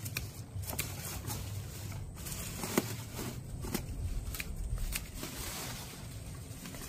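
Sweet potato vines and leaves rustling and crackling as they are handled and cut, with scattered sharp clicks and snips.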